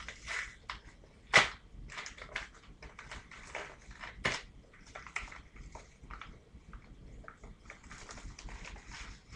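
Yellow padded mailer and the wrapping inside being handled and pulled open: a run of crinkling and crackling, with two sharp, loud cracks about a second and a half and about four seconds in.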